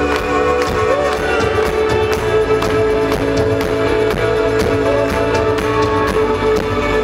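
Live rock band playing, with held guitar tones over a steady drum beat.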